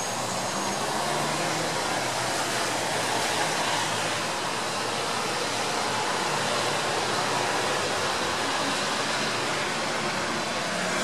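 Steady hiss of light rain falling.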